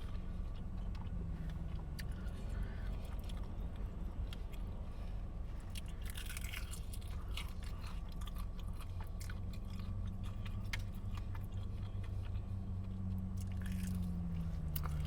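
Close-miked chewing and biting on chicken wings: wet smacking and small crunches, many short clicks one after another.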